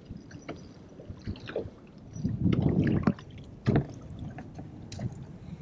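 Hooked largemouth bass splashing at the surface as it is reeled to the boat and lifted out, with water slapping against the hull. There is a louder burst of splashing about two seconds in and scattered sharp clicks and slaps.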